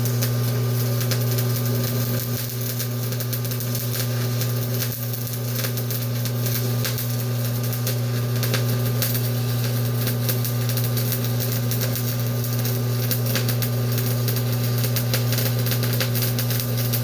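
Stick (SMAW) welding arc from a Vulcan 225 Commander stick welder running a bead: a steady crackle and sputter over a constant electrical hum.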